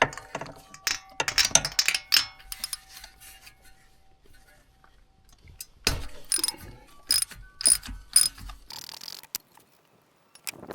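Ratchet wrench with a 5/8 spark plug socket clicking in quick runs of clicks, with metal clinks, while the old spark plug is loosened and taken out. The clicks come in two bursts: one in the first couple of seconds, and another around the middle.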